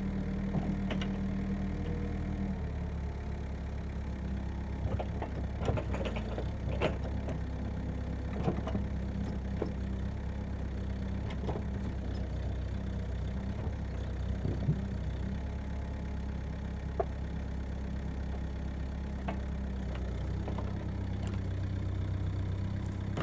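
Mini excavator's engine running steadily, its pitch dropping a little about two and a half seconds in, with scattered sharp knocks over it.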